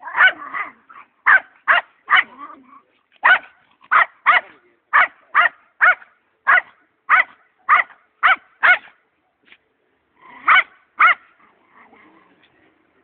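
A small dog barking in a quick run of short, high yaps, about two a second, breaking off for a second or so before two more barks.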